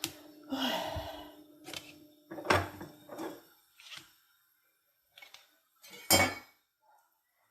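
Kitchen handling sounds: a series of knocks and clatters of dishes and utensils, with a short scrape about half a second in and the two loudest knocks about two and a half and six seconds in.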